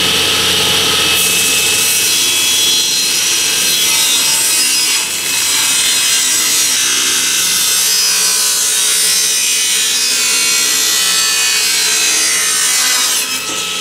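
Table saw running with its blade cutting through a board on the second pass of a rabbet joint: a steady motor hum under a loud, even cutting hiss. The cutting noise eases a little near the end.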